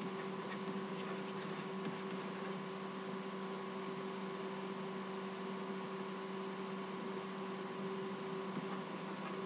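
Steady electrical hum with an even hiss behind it, unchanging throughout.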